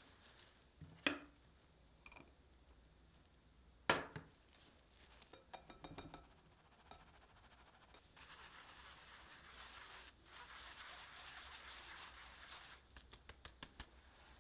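Flour being sifted through a metal mesh sieve into a glass bowl: two sharp knocks early, then a steady, soft rustling hiss of the sieve being shaken for about four seconds with a brief break in the middle, and a quick run of taps on the sieve near the end.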